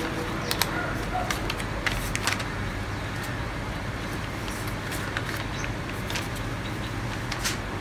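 Steady low rumble of street traffic, with a few light clicks and taps in the first couple of seconds and one more near the end.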